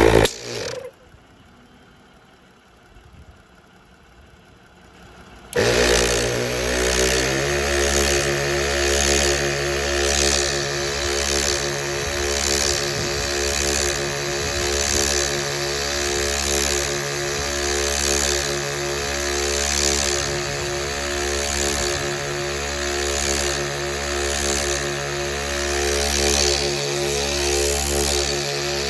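Rough Country twin-cylinder 12-volt air compressor switched on about five and a half seconds in: it spins up with a brief rising whine, then runs steadily, filling its air tank.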